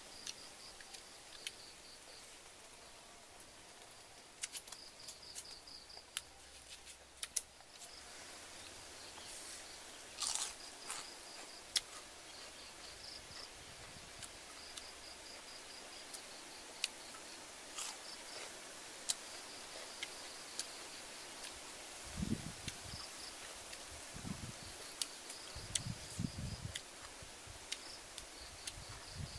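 Quiet outdoor ambience with an insect chirping in short, repeated pulse trains. Scattered light clicks and taps of hands handling food over a wooden board run throughout, with a few soft low thumps in the last third.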